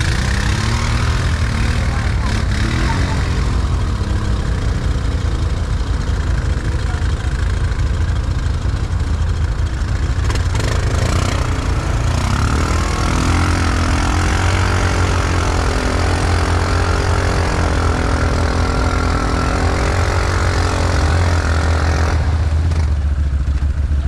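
Can-Am Outlander 1000 ATV's V-twin engine running steadily while riding, a deep drone over rushing noise. Midway a second engine's note wavers up and down for several seconds, and near the end the rushing noise drops away, leaving the low engine drone.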